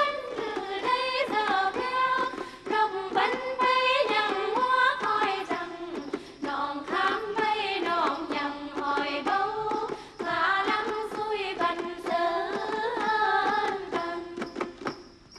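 Music: a singing voice carrying a winding melody that glides between notes, fading near the end.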